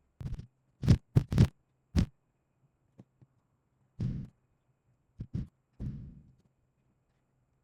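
Stock sound effects of cloth being whipped, layered to make deep thuds: a run of short, deep whooshing thumps, several of them followed by a fading tail.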